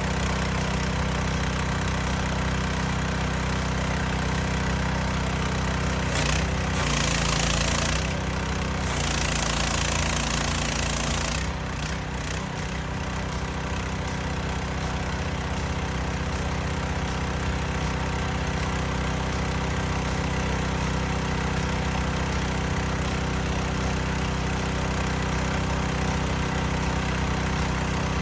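Power Horse hot-water pressure washer's gas engine running steadily under load, with bursts of louder hiss about six and eight seconds in.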